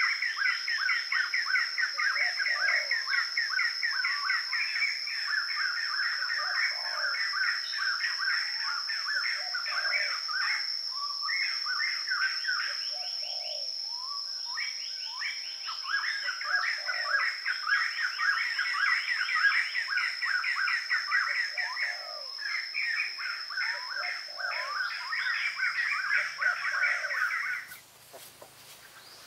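Birds chirping rapidly and densely, with a lower call repeating about every two seconds and a steady high tone behind them. It all cuts off suddenly near the end.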